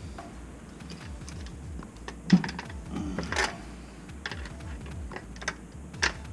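Scattered clicks and light knocks of hand tools and plumbing fittings being handled, with one sharp knock about two seconds in and a short scrape a second later.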